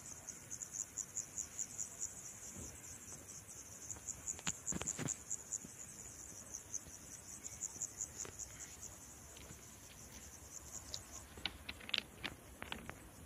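Insects chirping, cricket-like: a faint, high-pitched song pulsing about four times a second that fades out near the end, with a few soft clicks.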